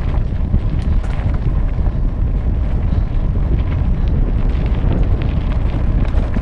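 Wind buffeting the microphone of a camera riding along on a mountain bike on a dirt and gravel road: a loud, steady low rumble with a few scattered light ticks.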